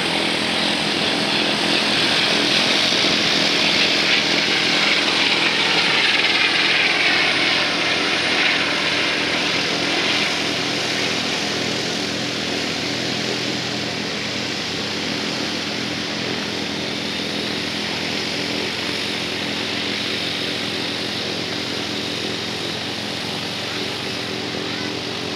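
Airbus H120 (EC120B) helicopter's turboshaft engine and rotors in flight. The sound is loudest a few seconds in, with a falling pitch as the helicopter passes. It then fades steadily as the helicopter climbs away.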